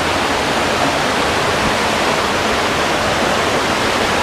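Water rushing over rocks in a river, a loud, steady rush.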